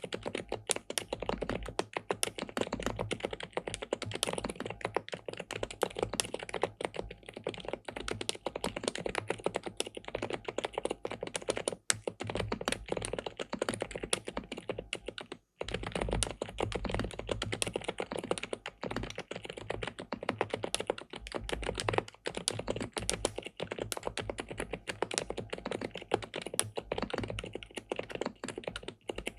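Continuous fast typing on an SPM PL87W (Mongdol 87) tenkeyless mechanical keyboard with linear switches and a polycarbonate plate: a dense, steady run of key clacks. It cuts out for a split second about halfway through, then carries on.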